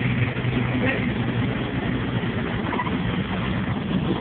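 Repaired boat engines running steadily on a sea trial: a steady low drone under a dense, even rushing noise.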